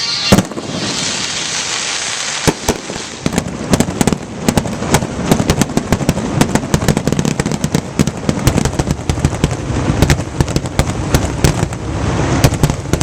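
A fireworks display: a single loud bang just after the start, then from about two and a half seconds in a rapid, unbroken barrage of bangs and crackles over a low rumble.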